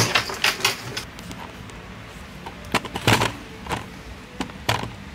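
Handling noise: a series of short clicks and knocks from things being moved on a workbench and the camera being picked up. There is a cluster near the start and more about three seconds in.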